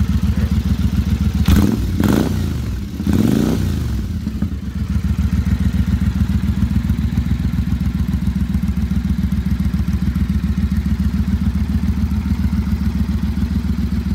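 2015 Triumph Speedmaster's 865 cc parallel twin running through British Customs Cocktail Shaker slip-on exhaust pipes. The throttle is blipped twice, about a second and a half in and again about three seconds in, each time rising and falling back. It then settles into a steady idle with an even beat.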